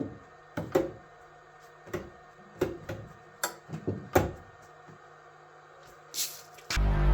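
A series of sharp clicks and knocks, about eight in the first four seconds, then a short hiss. Music starts near the end.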